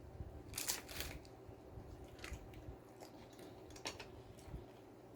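Crisp hard-shell taco crunching: a few sharp crunches about a second in and again near four seconds, with fainter crackles and chewing between.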